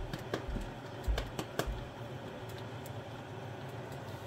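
Several light clicks and soft knocks in the first two seconds, from handling while dough is shaped over a plastic bowl, then a low steady hum.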